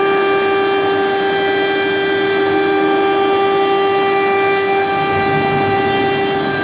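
CNC router spindle running with a steady high whine and a ringing overtone series, over the hiss of the bit cutting wood.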